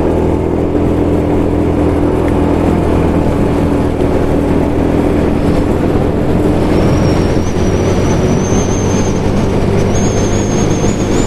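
Motorcycle engine running at a steady cruising speed, mixed with wind and road noise, as picked up by an action camera's home-made microphone. A faint high whine comes in just past halfway and rises slightly.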